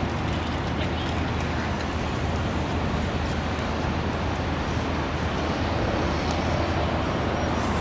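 Steady low engine rumble under an even wash of urban noise, constant throughout with no distinct events.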